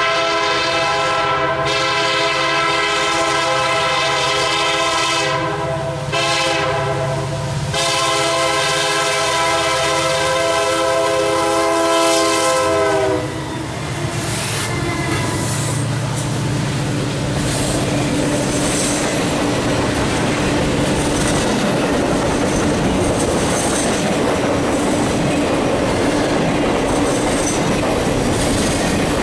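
Diesel locomotive air horn on a pair of Union Pacific SD70Ms, sounding several blasts with a short one among them, the last one long, and stopping about 13 seconds in. The locomotives then pass with a steady engine drone, followed by the rumble and clickety-clack of Triple Crown RoadRailer trailers rolling by on their rail bogies.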